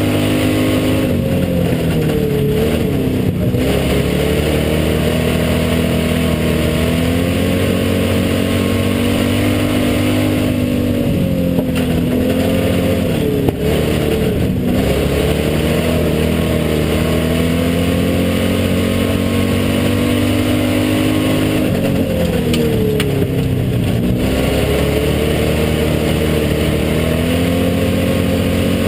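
Hobby stock race car's engine heard from inside the cockpit, running hard on a dirt oval. The revs dip and climb back three times, about every eleven seconds, as the driver lifts for each turn and gets back on the throttle.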